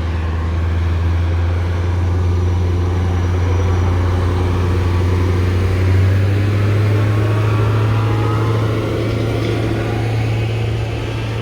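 A train running close by on the line: a loud, steady low drone that steps up in pitch about halfway through, with faint rising whines above it.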